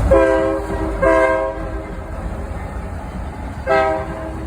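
Freight train locomotive sounding its air horn in three blasts of several notes at once, the second held longest and the third after a pause of about a second.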